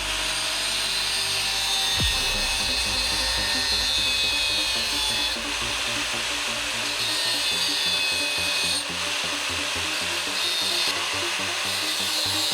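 A power tool cutting through a metal exhaust downpipe to trim it to length, running steadily with its sound shifting a couple of times as the cut goes on; background music plays underneath.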